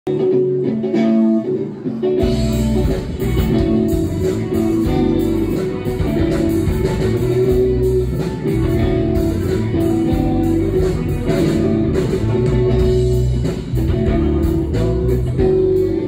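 A live rock band playing an instrumental intro: guitar alone for about the first two seconds, then drums and bass come in and the full band plays on with electric guitars.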